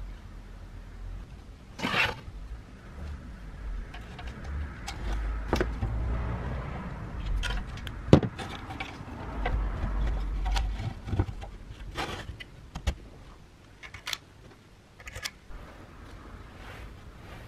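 Clicks, knocks and scrapes of plastic and metal parts being handled as a Makita planer is reassembled and its stator is fitted into the plastic motor housing. The sharpest knock comes about eight seconds in, over a low background rumble.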